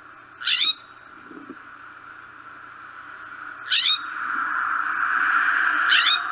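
California scrub jay giving three short, harsh calls, a few seconds apart. A steady rushing noise swells in the background during the second half.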